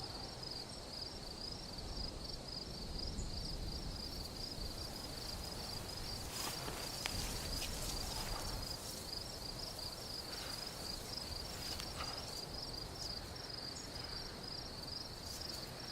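Quiet room tone with a faint, steady, high-pitched pulsing chirp repeating a few times a second, and a few faint clicks.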